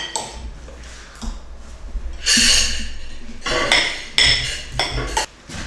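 Metal spoons clinking and scraping against plates and serving bowls as rice is spooned out and eaten, with a longer scrape about two seconds in.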